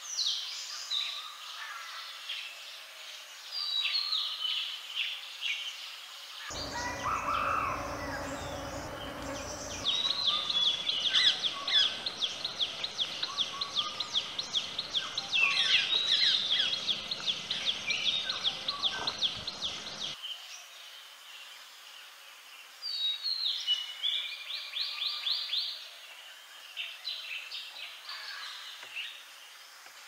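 Several wild birds chirping and calling. A fast, evenly repeated trill runs through the middle stretch and comes back briefly later.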